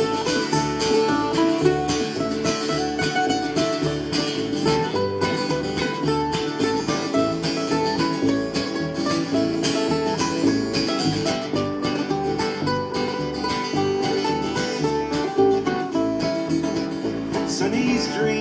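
Acoustic folk band playing an instrumental break on plucked string instruments, led by guitar, a steady run of picked notes over a regular bass line, with no singing.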